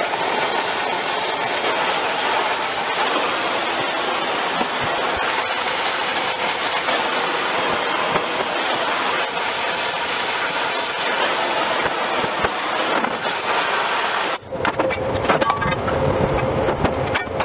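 Oxy-fuel gas torch flame hissing steadily as it heats a high-strength steel part, preheating it for welding. About fourteen seconds in the hiss cuts off suddenly and a rougher sound with a steady hum follows.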